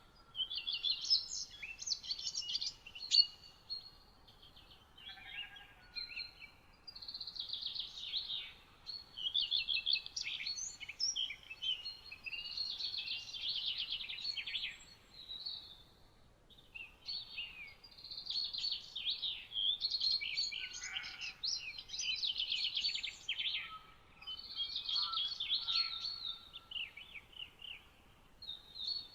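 Songbirds singing: repeated phrases of fast, high twittering notes, each lasting a second or two, with short pauses between them. A fainter, lower whistled note comes through now and then.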